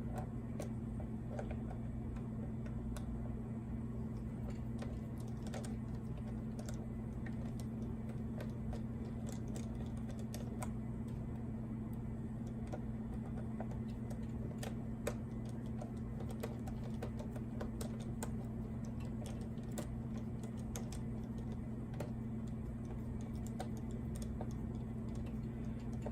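Small screwdriver working screws out of a plastic laptop case, giving irregular light clicks and taps over a steady low hum.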